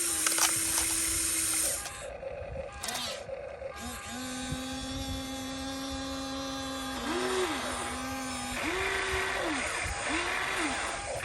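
Small electric motors of radio-controlled construction models whining, first held steady, then in the second half starting and stopping about once a second in rising and falling whirs, over a high hiss.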